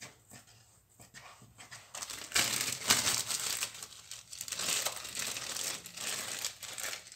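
Plastic freezer bag crinkling and rustling as it is handled, a few faint clicks at first, then dense and loud from about two seconds in.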